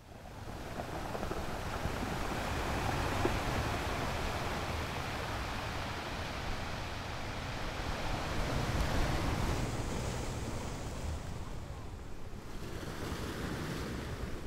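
Harbour waves washing and lapping, a steady rush of water noise mixed with wind, swelling slightly about halfway through.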